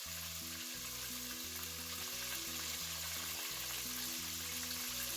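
Vegetable oil sizzling steadily as flour-coated chicken deep-fries, under background music of held low notes that step from one to the next.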